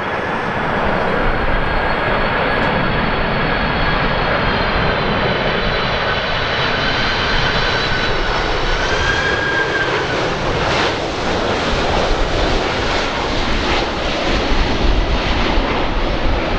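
Turbofan cargo jet on landing approach passing close: a steady rush of jet engine noise with several high whining tones that waver and dip slightly in pitch, with gusty low rumble from strong wind on the microphone.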